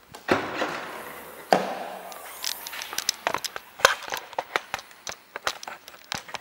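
Hatchback tailgate being unlatched and swung open. A sharp clunk comes about one and a half seconds in, followed by a quick run of small clicks and knocks.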